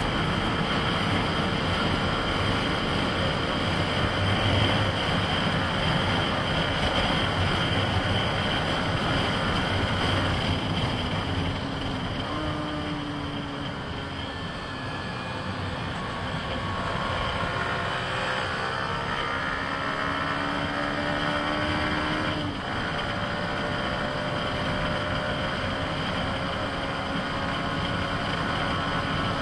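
Yamaha MT-15's 155 cc single-cylinder engine running under way, with wind and road noise on the onboard microphone. The engine eases off for a few seconds in the middle, then pulls with a rising note that drops off abruptly about two-thirds of the way through.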